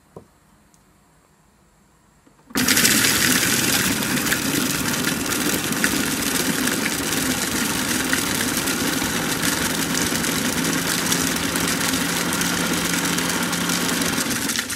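Electric food processor starting up about two and a half seconds in and running steadily, its blade whipping wild strawberries with sugar into a thick purée, then switching off abruptly at the end. A light click sounds just before it starts.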